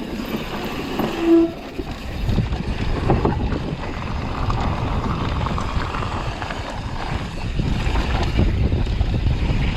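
Mountain bike riding fast down a dirt trail: wind buffeting the microphone and the bike rattling over rough ground, growing louder after about two seconds, with a brief pitched tone about a second in.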